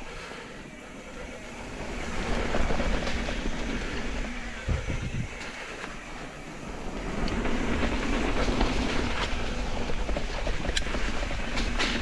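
Mountain bike riding down a dirt trail: tyres rolling over packed dirt and leaves, with wind rushing on the microphone, louder as speed picks up about two seconds in and again past the middle. A knock about five seconds in and a few sharp clicks near the end.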